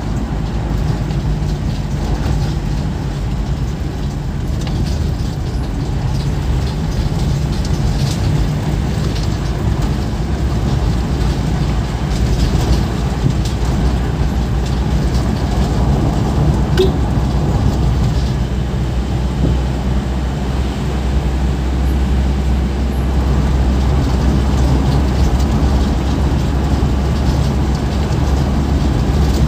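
Vehicle engine and road noise heard from inside the cabin while driving: a steady low hum.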